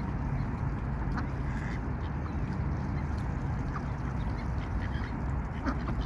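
Mallard ducks giving a few short quacks while feeding, over a steady low background rumble.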